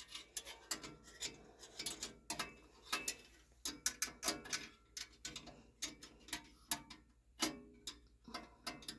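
Hand ratchet clicking in irregular runs of sharp clicks as the furnace flame sensor's screw is driven back in.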